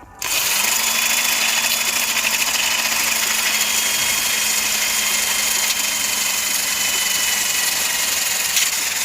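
Angle grinder switched on and held against steel bodywork, running steadily with a motor whine under a loud grinding hiss.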